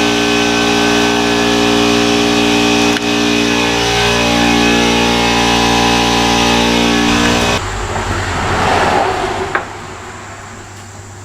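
A power tool running steadily with a whine, its pitch dipping briefly in the middle, then switched off about seven and a half seconds in and spinning down.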